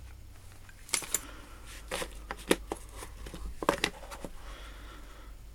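Small hand tools being handled in a toolbox drawer: a scattered series of about eight sharp clicks and light knocks as tools are picked up and set down.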